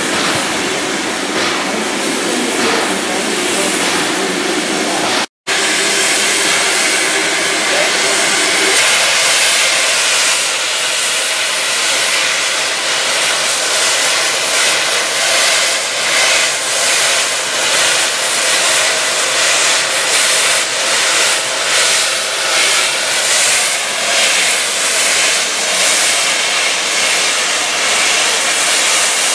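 LNER B1 steam locomotive 61306 Mayflower standing with steam blowing off, a loud steady hiss. In the second half the hiss swells and fades about once a second.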